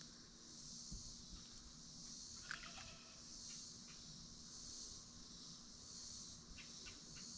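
Faint chorus of insects in the trees: a steady high-pitched buzz that swells and fades about once a second, with a few short chirps near the middle and again near the end.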